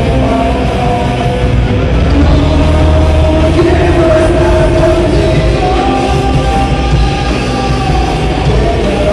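Live rock band playing loudly: electric guitars, bass guitar and drums.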